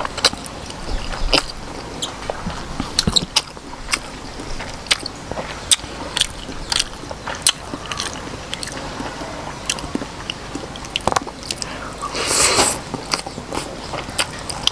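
Close-up eating sounds of a person chewing octopus and Khmer rice noodles: irregular wet smacks and clicks of the mouth, with a longer noisy slurp about twelve seconds in.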